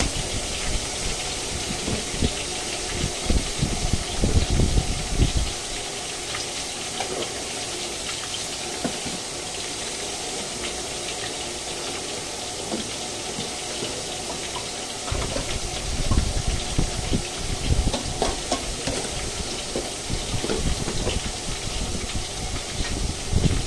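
Chicken wings deep-frying in a wok of hot oil: a steady, even sizzle. Irregular low rumbles come and go over it, during the first five seconds and again from about fifteen seconds in.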